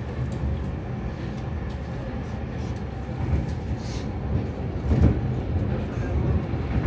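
Stockholm metro (tunnelbana) train running through the tunnel, heard from inside the car: a steady low rumble of wheels on rails, with a few sharp knocks and a louder stretch about three to five seconds in.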